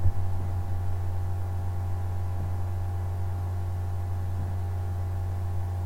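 Steady low electrical hum with a faint hiss under it: mains hum picked up by the recording's microphone.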